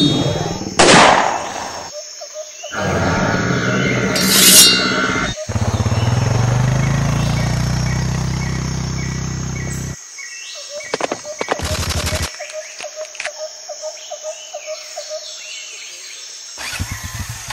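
A string of added sound effects. It opens with sharp whooshes and hits, then a steady low engine drone runs for about four seconds. About eleven seconds in comes a rapid burst of machine-gun fire, then a run of quick clicks.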